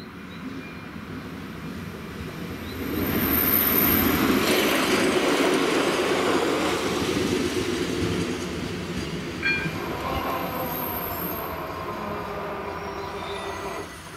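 Passenger train passing over a level crossing. It swells quickly about three seconds in, stays loud for several seconds with wheel noise, then gradually eases. The sound drops off sharply near the end.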